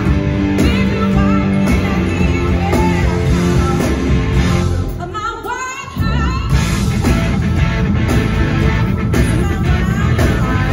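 Live blues-rock band with a woman singing lead and playing electric guitar, drums and bass under her. Near the middle the band drops out for about a second and a half, leaving a short unaccompanied wavering line, then comes back in at full level.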